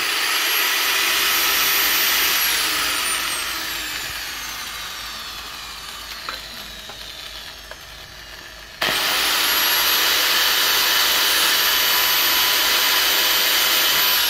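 Electric angle grinder running at full speed against the edge of a panel, then switched off and winding down with a slowly falling whine for several seconds. About nine seconds in it is switched on again, spins up at once and runs on with a steady high whine.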